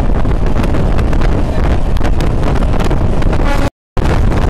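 Wind buffeting the microphone over the rumble of a moving MEMU electric train, with many short sharp clicks and rattles. The sound cuts out completely for a moment near the end.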